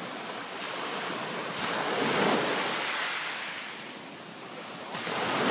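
Small waves washing up a pebble beach: one surges in about a second and a half in and ebbs away, and the next arrives near the end.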